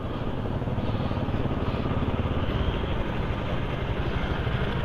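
Steady street traffic noise, with motorcycle engines running on the road.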